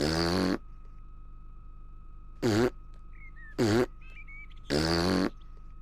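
A cartoon piglet's voice blowing buzzy raspberries with the tongue stuck out, two longer ones at the start and about five seconds in, with two short hiccup sounds between them.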